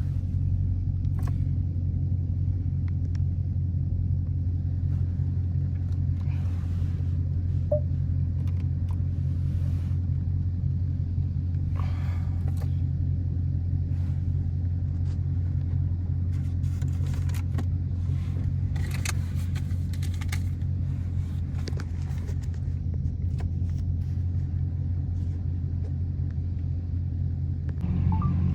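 Dodge V8 engine running with a steady low rumble, getting a little louder near the end.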